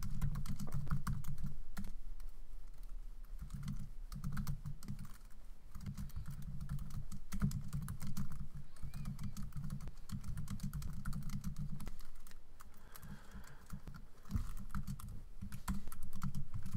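Typing on a computer keyboard: quick runs of key clicks broken by brief pauses.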